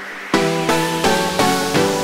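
Background music: a melody of short pitched notes, about three a second, each dying away, starting about a third of a second in.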